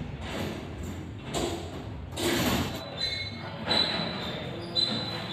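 Metal chandelier frame being handled and fitted against the ceiling: irregular scraping and rustling, joined from about three seconds in by a thin, steady high-pitched squeal of metal rubbing on metal.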